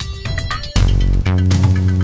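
Background music: plucked notes over a beat, with a heavier bass line and chords coming in about three-quarters of a second in.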